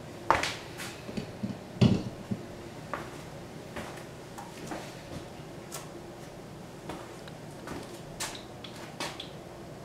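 Hand tools being handled at an engine stand: scattered metallic clicks and knocks, the loudest a heavier thump just under two seconds in. Near the end come a few clicks as a torque wrench and socket are fitted onto a bolt.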